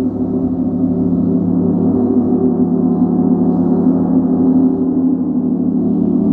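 Giant gong ringing on in a steady, dense low drone of many overlapping tones, with no fresh strike.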